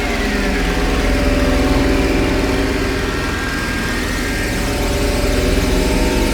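Roland System-8 synthesizer playing a dense analog-style drone: a steady low rumble under many held tones, with a few tones gliding downward in pitch in the first second.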